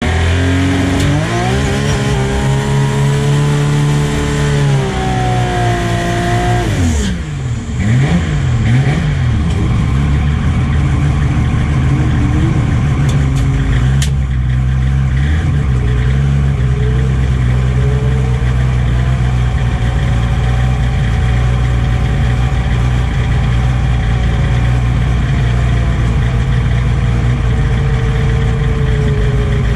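A turbocharged Toyota 2JZ inline-six in a drag-racing Celica revs up and is held at high revs during the burnout, then drops back sharply about seven seconds in. It then idles steadily, with one sharp crack about fourteen seconds in.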